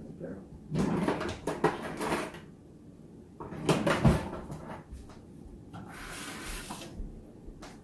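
Dishes and utensils clattering and scraping, in two bursts of sharp knocks, one about a second in and another near four seconds, followed by a softer rustling hiss.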